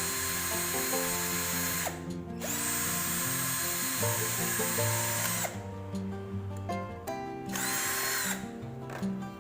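Electric hand drill boring a hole in PVC pipe. It whines in three bursts, the motor spinning up and winding down between them.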